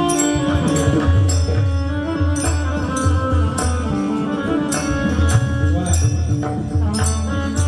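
Instrumental passage of Marathi devotional music: held melodic notes over a steady beat of drums and jingling percussion, with no clear singing.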